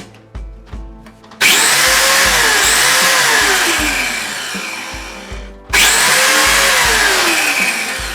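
Background music with a steady beat, then, about a second and a half in, an angle grinder cutting loudly. It stops abruptly about five and a half seconds in and starts cutting again a moment later.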